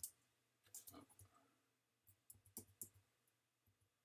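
Faint clicking of computer keyboard keys being tapped in a few short clusters with pauses between them.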